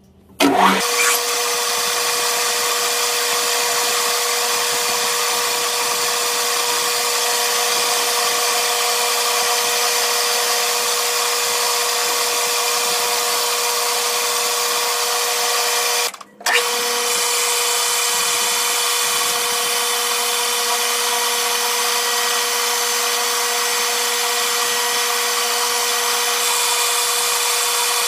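Metal lathe starting up, then running at a steady speed with a constant whine of motor and gears while a twist drill bores through aluminium round bar. About sixteen seconds in the sound drops out for a moment and comes back.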